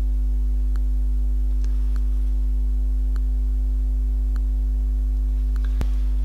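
Steady low electrical hum with a stack of overtones, with faint ticks about every second and a sharper click near the end.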